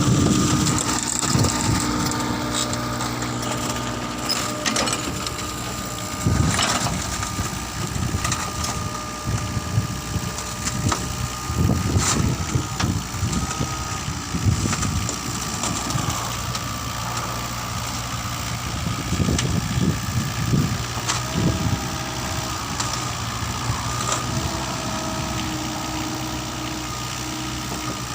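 Mitsubishi mini excavator's diesel engine running, its low note swelling now and then under load, with scattered sharp clanks and knocks.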